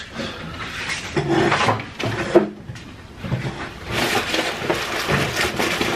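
Brown paper takeout bag rustling and crackling as a hand rummages inside it for wrapped food, busiest in the second half.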